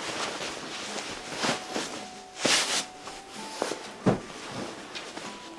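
Woven cotton cover rustling and swishing as it is pulled over a foam crib mattress, with a dull thump about four seconds in as the mattress is laid down on the carpet.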